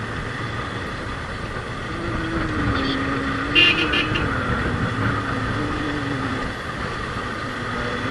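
Yamaha FZ25 single-cylinder motorcycle engine running on the move, its note rising and falling, over steady wind and road noise. A brief high-pitched sound comes about three and a half seconds in.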